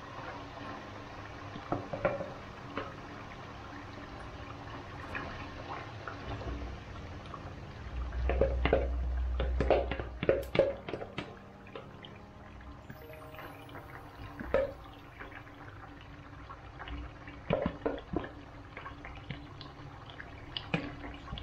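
Blended chili paste frying in hot oil in a non-stick wok, bubbling and sizzling steadily, with scattered taps and scrapes of a wooden spatula as more paste is spooned in, clustered about eight to eleven seconds in.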